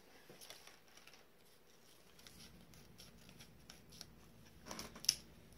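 A plastic blister pack of trading cards being handled and cut open with scissors: faint scattered clicks and rustles, then a louder run of snips and clicks near the end.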